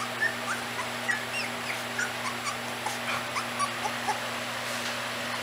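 Young Icelandic Sheepdog puppies squeaking and whimpering: a running series of short, high-pitched squeaks, about three a second, over a steady low hum.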